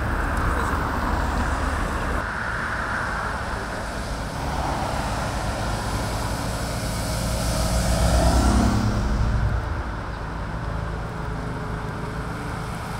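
Road traffic noise with a steady low rumble. About eight seconds in, a vehicle passes close, getting louder, its engine note falling as it goes by.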